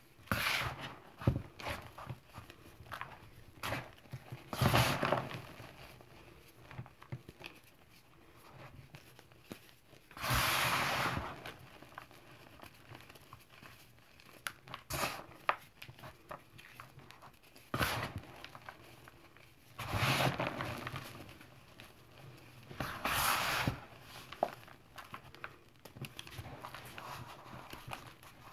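Hands crunching and sifting crumbly, crispy chunks of teal gym chalk and cornstarch. Gritty crunches and powdery pours come in bursts of about a second, six or so times, with small crackles between.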